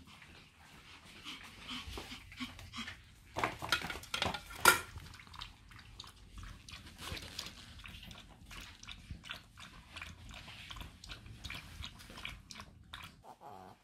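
Small Pomeranian lapping water from a stainless-steel bowl, a quick run of small wet clicks, with a louder clatter of sharp knocks about four and a half seconds in.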